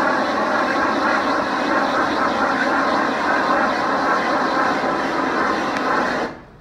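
Propane shrink-wrap heat gun running with a steady rushing noise as it shrinks the plastic wrap, cutting off near the end.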